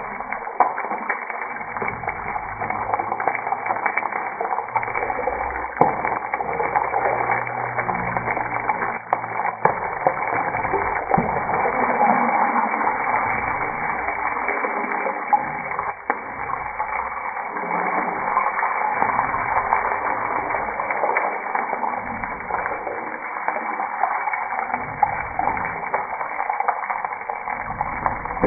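Hot oil sizzling steadily in a nonstick frying pan as turmeric-coated boiled eggs fry, with a few clicks of the spatula against the pan in the first ten seconds.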